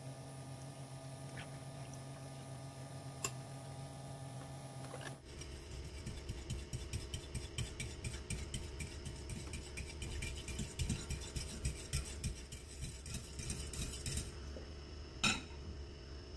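Metal spoon stirring briskly in a bowl of pandan and coconut-cream mixture, clinking rapidly against the bowl's side at several strokes a second for about nine seconds, then one sharper knock of the spoon near the end.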